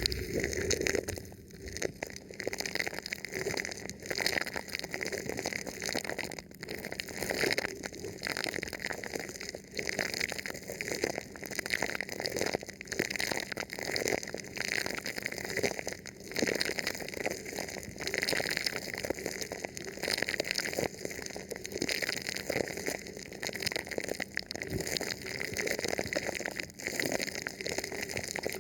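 Thin plastic film stretched over a microphone being rubbed and touched, a close, continuous crinkling and crackling that swells and eases every second or two.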